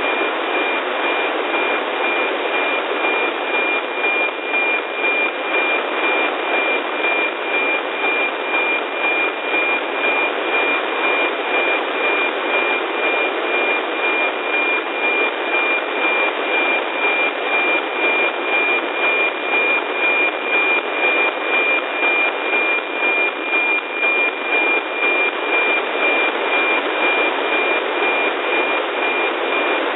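NOAA 15 weather satellite's APT image signal, demodulated by an RTL-SDR receiver in narrow FM: a steady 2.4 kHz tone that pulses in a regular beat, buried in heavy static hiss.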